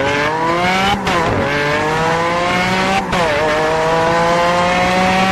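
Racing car engine sound effect accelerating hard through the gears. Its pitch climbs steadily, drops sharply at two gear changes about one and three seconds in, and climbs again each time.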